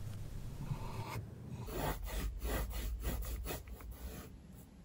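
Paintbrush dragging acrylic paint across canvas: a soft rasp in quick, short strokes, about five a second, for about two seconds in the middle.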